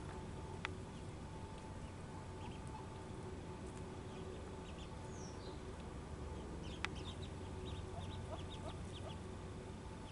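Mallard ducklings giving short high peeps, a few scattered at first and then a quick run of them in the second half. Two sharp clicks stand out, one near the start and one about two-thirds of the way through.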